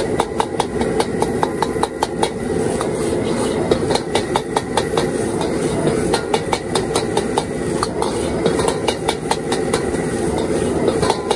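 A steel wok ladle clanging and scraping against a wok several times a second as vegetables and egg are stir-fried, over the steady roar of a high-flame gas wok burner.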